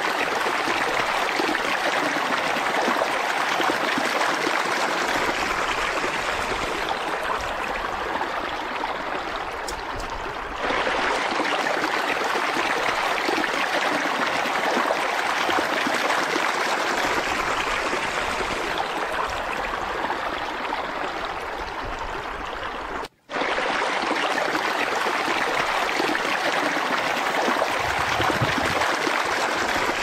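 Steady rushing of a river's flowing water, cutting out for an instant about two-thirds of the way through.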